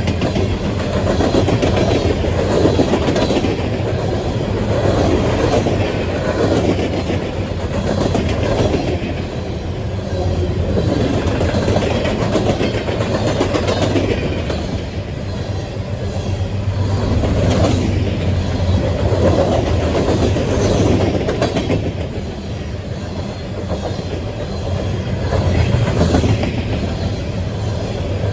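Coal train cars rolling past, the wheels clattering over the rail joints, the sound rising and falling every couple of seconds.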